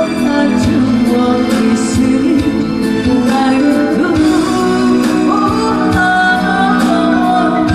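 A woman singing a slow, calm song over instrumental accompaniment with a steady beat.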